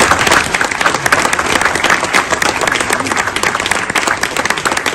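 Audience applauding, a dense run of steady hand clapping.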